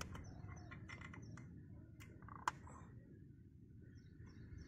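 A rubber balloon being stretched over a motorcycle silencer tip by hand: faint rubbing, squeaks and light clicks, with two sharp snaps of the rubber about two and two and a half seconds in.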